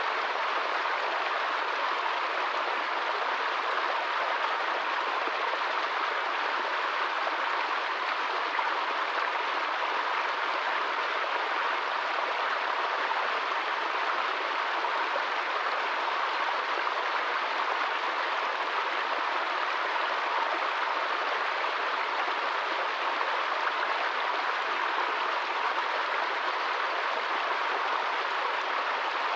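Small stream splashing down over rocks in a short cascade: a steady, even rush of running water.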